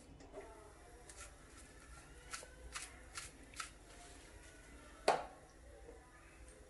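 Faint scattered clicks and taps of kitchenware being handled, with one louder knock about five seconds in.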